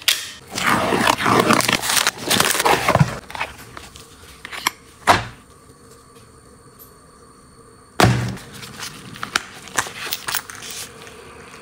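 Cardboard mailer box being opened and handled with gloved hands: dense rustling and scraping of cardboard for about three seconds, then two sharp clicks around five seconds in. After a quiet stretch, a sudden burst of rustling from the shredded-paper filler about eight seconds in, tapering into light handling clicks.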